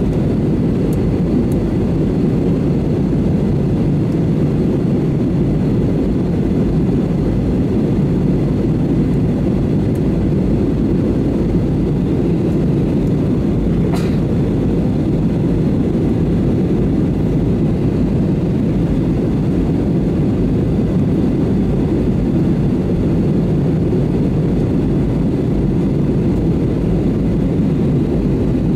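Steady low rumble of an Airbus A320neo's jet engines running, holding at an even level, with one faint click about halfway through.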